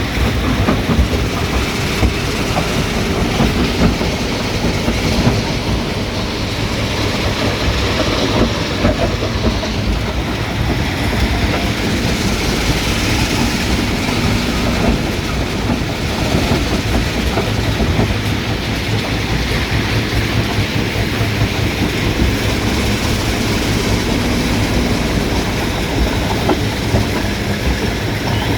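Stone crusher running: a steady low machine hum under a continuous rattle and clatter of rock being crushed, with frequent irregular knocks.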